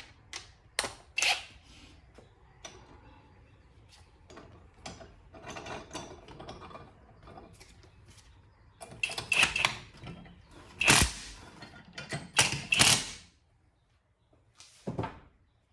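Metal clinks, clicks and scrapes of nuts and hand tools being fitted on the bearing-cap studs of a differential housing. A cluster of louder sharp clanks comes about nine to thirteen seconds in.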